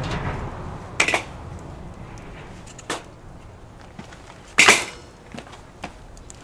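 Wood fire burning in a metal fire pit, with a few sharp cracks and knocks (the loudest about four and a half seconds in) and small crackles between.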